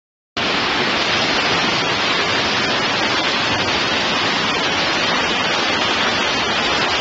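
Floodwater rushing through a flooded subway station: a steady, dense rush of water. It starts abruptly about half a second in, after a moment of silence.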